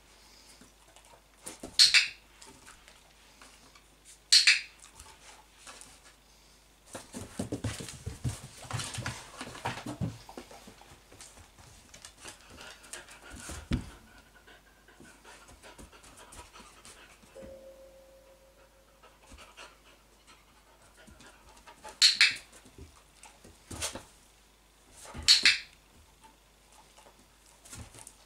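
Dog-training clicker giving four sharp clicks, two near the start and two near the end, several seconds apart, while a dog pants. In the middle come a stretch of rustling and a single thump as the dog moves about and lies down on the wooden floor.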